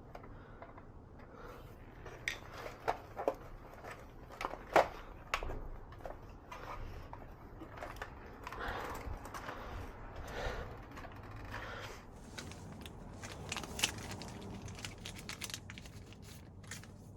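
Hands handling parts and tools: scattered light clicks and knocks with some rustling, the sharpest knock about five seconds in.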